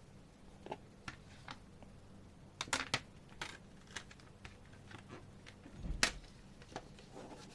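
Scattered light clicks and taps of a plastic CD jewel case and its paper inserts being handled, with a quick cluster of clicks a little under three seconds in and a louder knock about six seconds in.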